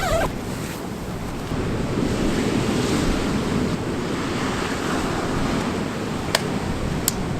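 Rough, stormy sea surging and breaking, with strong wind buffeting the microphone. Two short sharp clicks come near the end.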